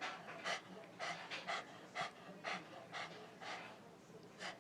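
Dog panting in short, quick breaths, about two a second.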